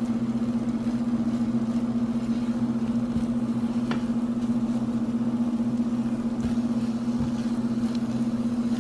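Steady low electrical hum from a motor or appliance, unchanging throughout, with a few faint taps of a silicone spatula against the skillet as scrambled eggs are stirred.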